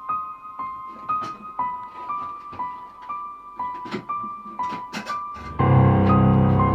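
Background music: a piano repeats a slow figure alternating between two high notes, about two notes a second. About five and a half seconds in, a loud, low, sustained chord comes in beneath it.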